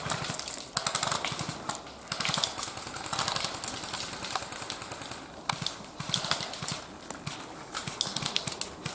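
Footsteps crunching over dry leaves and twigs, with rustling of clothing and gear, in irregular crackling steps.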